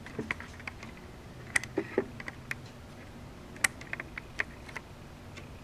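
About a dozen irregular light clicks and taps, a few sharper than the rest, over a faint steady hum.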